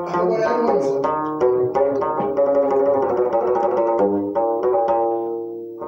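Instrumental music: a plucked string instrument playing a quick run of melody notes, then a final note left ringing and fading out near the end.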